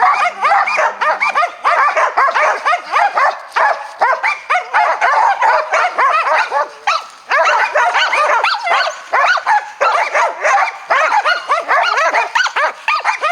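A pack of Karelian-Finnish laikas barking fast and without a pause, their high-pitched barks overlapping: baying at a marten treed in its nest in a pine.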